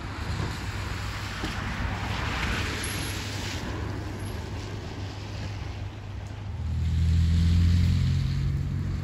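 Steady rushing noise from a steam locomotive passing beneath a bridge, its exhaust steam billowing around, with a brighter hiss a couple of seconds in. A loud low hum swells about seven seconds in and eases near the end.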